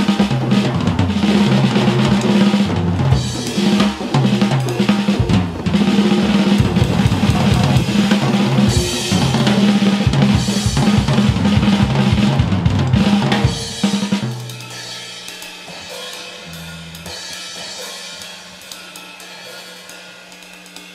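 Band music led by a drum kit, with snare, bass drum, hi-hat and cymbals over a line of bass notes. Near two-thirds of the way through the drums stop and the music drops to quieter held bass notes.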